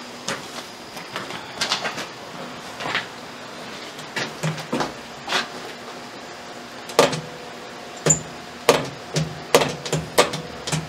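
Irregular knocks and clicks: footsteps in a concrete passage, then the push buttons of an old industrial control panel being pressed by a gloved hand, the clicks coming closer together near the end.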